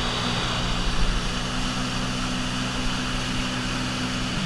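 Yamaha jet ski engine running steadily at speed under the hiss of rushing water and spray from the hull. Just before the end the engine note drops as the throttle comes off.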